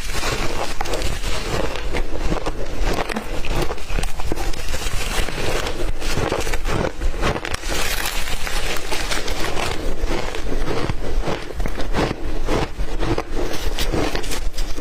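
Ice being chewed close to the microphone: a continuous, loud run of crunching and crackling as the ice is bitten and ground between the teeth.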